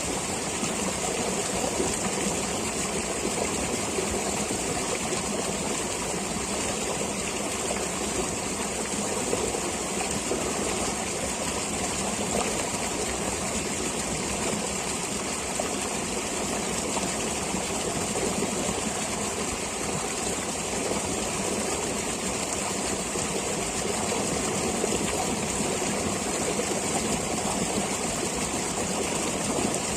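A forest stream flowing steadily, a constant even rush of water with a high hiss over it.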